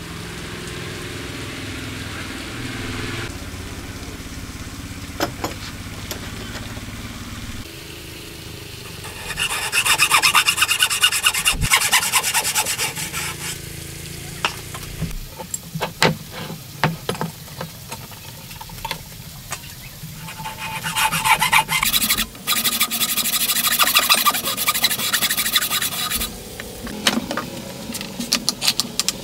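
A hand tool cutting a wooden block with rapid rasping strokes, in two loud bursts of a few seconds each. Scattered knocks fall between the bursts, and a soft low hum runs through the opening seconds.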